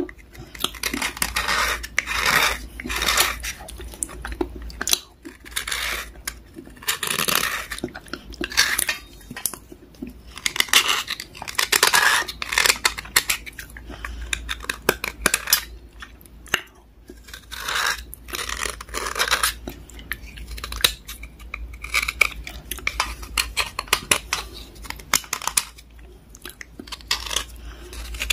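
A metal blade scraping along three wet slate pencils held side by side, in repeated scraping strokes about a second long, with sharp clicks of metal on stone between them.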